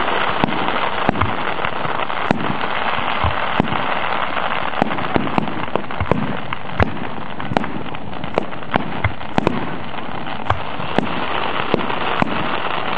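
Aerial fireworks bursting: a long run of sharp bangs at irregular spacing, about two a second, over a steady noisy background.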